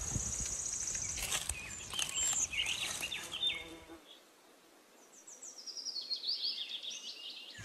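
Birds chirping, with many short rising and falling calls. There is a fast high trill in the first second, and a run of chirps stepping down in pitch near the end.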